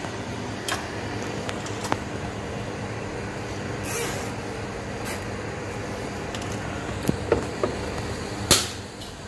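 Small plastic clicks as nylon cable ties are pulled tight around wiring, with a loud sharp snip near the end as side cutters trim a tie's tail. A steady hum runs underneath.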